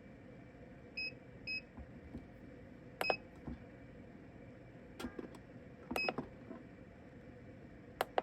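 Short electronic button beeps from a mini heat press's control panel, four in an irregular pattern, as the timer is being set, with a couple of sharp clicks in between.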